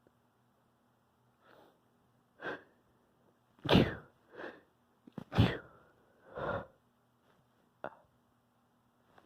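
A person sneezing twice, about a second and a half apart: two loud sneezes, with quieter breaths before, between and after them.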